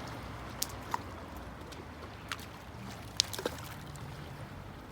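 Sea waves washing on a beach: a steady low rush of water, with a handful of short sharp clicks scattered through it.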